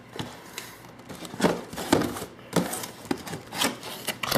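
A shipping box and its foam packing being handled: irregular rustling and crinkling, with a few sharper scrapes or knocks.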